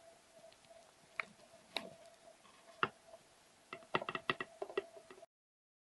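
Faint scattered clicks and taps of hands handling the plastic dispenser-arm mechanism of a Keurig K90 brewer: a few single clicks, then a quick cluster of them about four seconds in, over a faint steady hum. The sound cuts off abruptly near the end.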